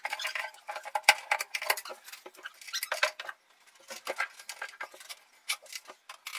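Rapid, irregular light clicks and taps from handling and fitting kitchen wall-cabinet shutters, coming in clusters with a short lull about halfway through.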